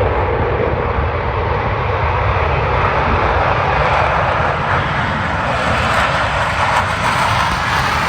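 Blue Angels Boeing F/A-18 Super Hornets of the four-jet Diamond taking off on afterburner, their jet engines making a loud, steady rushing noise.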